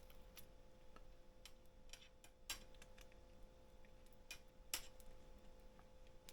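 Near silence with faint, irregular light clicks and taps of small parts being handled, two of them a little louder, about two and a half and nearly five seconds in, over a steady faint electrical hum.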